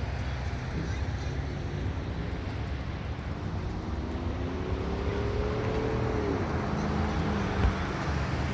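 Road traffic with a steady low rumble. A passing vehicle's engine tone rises for a few seconds and then drops sharply as it goes by, followed by a brief knock near the end.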